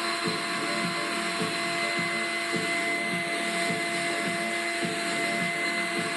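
Homemade central vacuum's turbine motors running steadily, with a steady high whine over the rushing of air drawn through the pipework.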